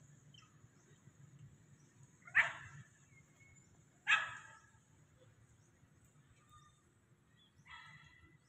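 Two loud, short barking calls from an animal, about a second and a half apart, then a weaker call near the end.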